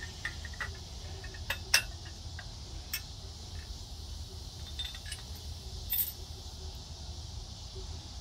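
Metal parts of a Strong Arm pottery-wheel attachment clinking and knocking together as it is handled and fitted, a few sharp separate clinks, over a steady chirring of crickets.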